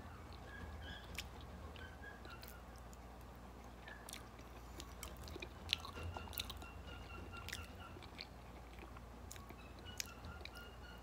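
Faint chewing of stir-fried noodles and potato, with scattered small mouth clicks, over a steady low hum.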